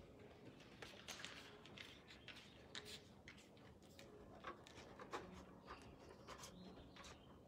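Near silence with faint, scattered small ticks and rustles from a large dog moving about close to the microphone.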